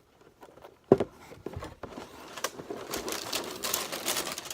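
A single knock about a second in, then paper crinkling and rustling that grows over the last two seconds: a shoebox being opened and its paper packing handled.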